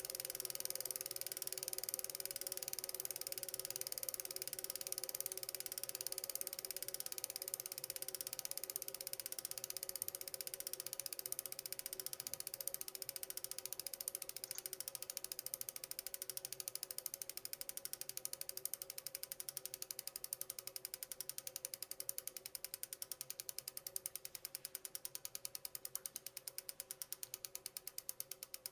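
Bicycle freewheel hub clicking as the wheel spins freely, its pawls ticking on the ratchet. The clicks are a fast, blurred run at first and slow steadily into separate ticks as the wheel loses speed.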